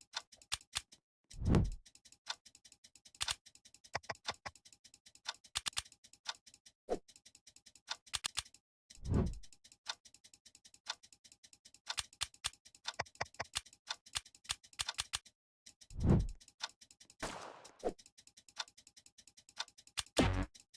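Irregular rapid clicking and ticking, with a heavier thud about every five to seven seconds.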